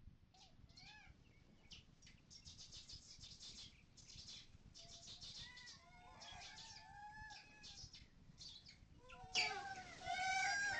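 Several birds chirping and trilling in quick, high notes. About nine seconds in, a louder bird joins with repeated arching calls.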